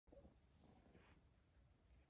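Near silence: faint room tone with a few faint, brief sounds.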